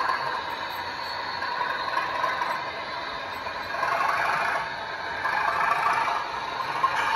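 OO gauge model diesel locomotive with a DCC sound decoder, its small onboard speaker playing a diesel engine running while the model's wheels rattle and scrape over the track as it moves slowly. The noise swells and dips a few times.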